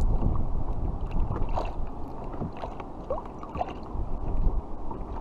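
Wind buffeting the microphone while small waves lap and slosh against a kayak's hull, louder in the first couple of seconds and then easing, with a few faint small clicks.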